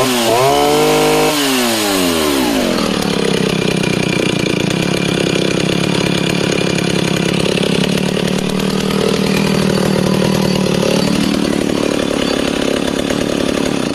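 West German Stihl 08S two-stroke chainsaw revved up once, then falling back to a steady idle, which it holds for about ten seconds before it is switched off at the very end.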